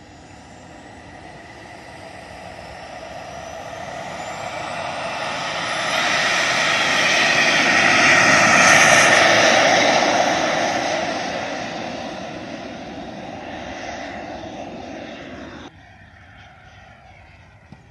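Radio-controlled model jet on its take-off run. A thin whine rises in pitch as the engine winds up, then a jet rush swells to its loudest about eight seconds in as the model passes close by, and fades as it climbs away. The sound drops off abruptly shortly before the end.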